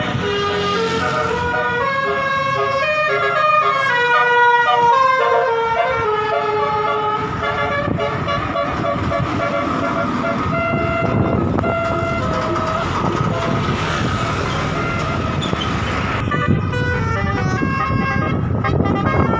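Bus telolet horn of the Basuri type playing a multi-tone melody: a quick run of stepped notes for the first several seconds, then a few longer held notes, and another run of notes near the end. Road and engine noise run underneath.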